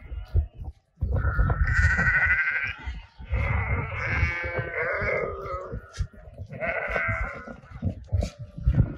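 Sheep bleating: three long bleats, the middle one the longest, over a low rumble.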